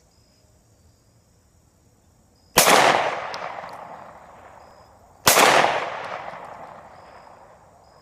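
Two shots from a Glock 19 9mm pistol, about two and a half seconds apart, each followed by a long echo that dies away over a couple of seconds.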